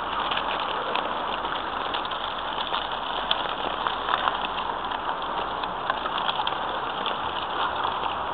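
Steady city street noise, a hiss of traffic with faint scattered clicks, as the family walks along the pavement pushing a stroller.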